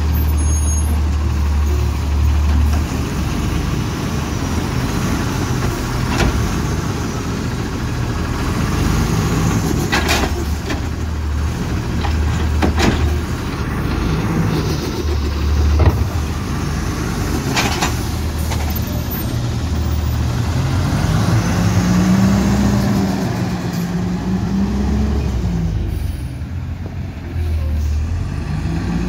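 Automated side-loader garbage truck with its diesel engine running and revving while the hydraulic arm lifts and dumps curbside carts, with about five sharp clunks of the carts and arm. Later the engine pitch rises and falls through the gears as the truck pulls away.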